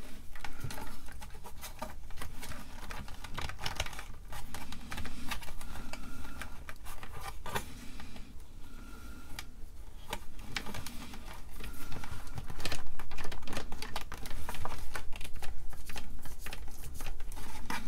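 Irregular clicks, knocks and scraping of hands working a stiff power cord through the plastic case of an Atari 410 cassette recorder, with plastic and cord rubbing against each other.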